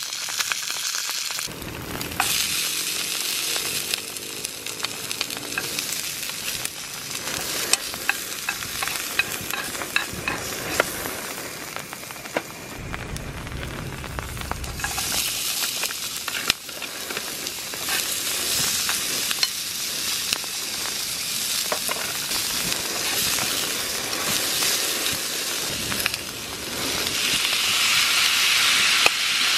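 Oil sizzling in a small frying pan over a portable gas stove, with scattered clicks of stirring. The sizzle grows louder about halfway through as chopped onion goes into the pan, and again near the end as chopped tomatoes are tipped in.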